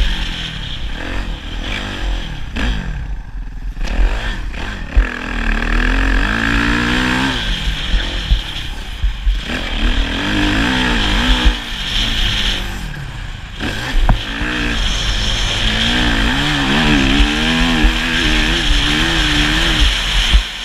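Motocross motorcycle engine revving up and falling off again and again as it is ridden round the track, over a constant low rumble, with a few sharp knocks.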